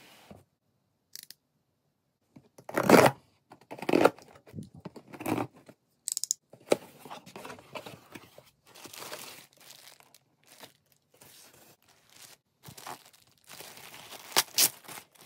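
Brown packing tape being ripped off a cardboard box in three loud tearing pulls about a second apart, then cardboard flaps rustling as the box is opened and a clear plastic bag crinkling as hands handle it.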